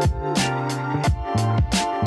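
Background music with a steady drum beat, about three strokes a second, over held instrumental tones.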